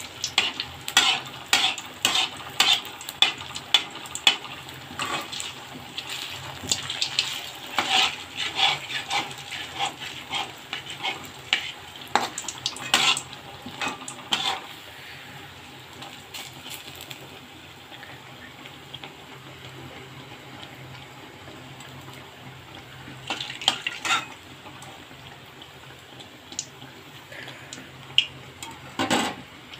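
A slotted metal spoon clinking and scraping against a metal karai while a teler pitha fries in sizzling oil. The clinks come thick and fast through the first half, then thin out to a few, leaving the steady sizzle of the oil.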